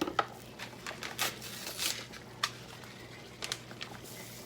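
Rustling and crinkling of a packet of soup mix being handled and torn open over the pot, with a few light clicks and taps, over a low steady hum.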